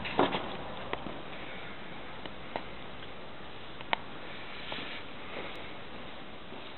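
Steady hiss of room noise in an empty room, broken by a few sharp clicks and knocks, the loudest just after the start; the hiss fades off near the end.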